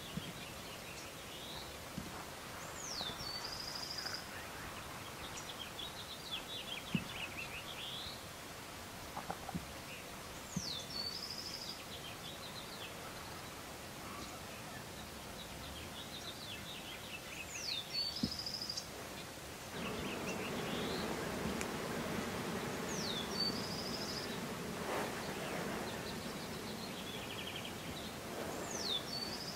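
A songbird repeating one short song about every seven seconds: a sharp downward slur, a buzzy trill, then a dry descending rattle. About two-thirds of the way in, a low rushing noise rises beneath it.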